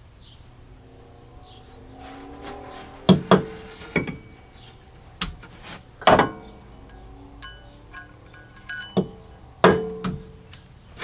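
Soft background music under a series of sharp metallic clinks and knocks from the bolts, washers and forged steel tow hook being handled and fitted. Some of the clinks ring briefly, like a washer chiming.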